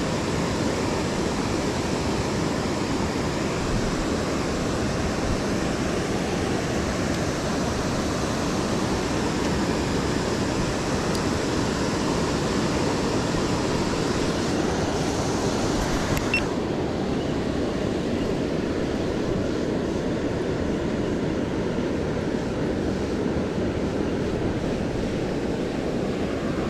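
Steady, dense rushing noise with no clear pitch or rhythm; its hissy upper part drops away about sixteen seconds in.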